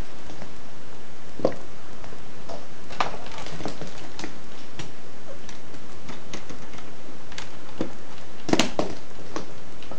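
Scattered plastic clicks and clacks of a Lego brick-built rifle being handled and worked, the loudest a sharp clack about eight and a half seconds in, over a steady hiss.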